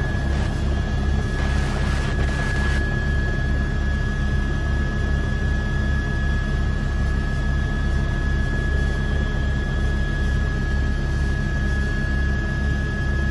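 Helicopter rotor and turbine engine running steadily: a low, even rotor pulse with a steady high whine over it.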